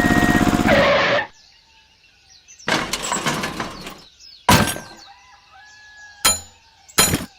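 A small motor runs evenly, then cuts off about a second in. Four separate crashes follow, sharp impacts with a breaking, shattering ring, over faint bird-like chirps.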